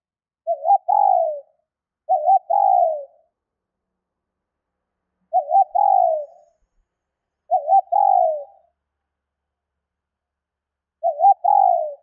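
Female spotted dove cooing five times, each call a quick wavering double note followed by a longer note that falls in pitch, with gaps of a few seconds between calls. It is the female's call that draws in males.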